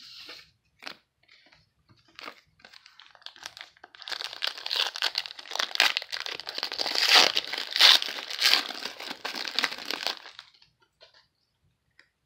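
Foil wrapper of a football trading-card pack being crinkled and torn open, after a few light clicks as cards are handled. The crinkling starts about three seconds in, grows loudest near the end, and stops shortly before the end.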